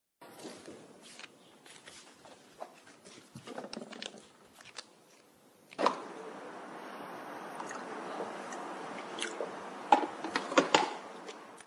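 Paper rustling and crinkling in hands, with irregular small crackles. About six seconds in, a steady hiss starts, with a few sharp clicks and knocks near the end.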